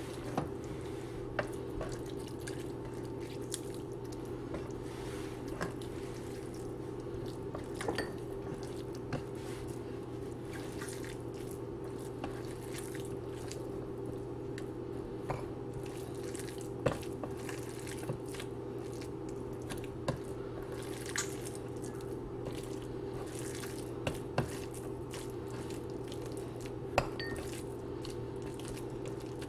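Fingers crushing a boiled egg on a stainless-steel plate: scattered light, irregular clicks and taps of fingers against the steel. A steady low hum runs underneath.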